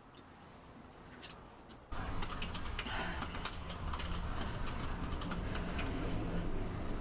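Typing on a MacBook laptop keyboard: a quick, irregular run of key clicks that starts suddenly about two seconds in, over a low steady hum.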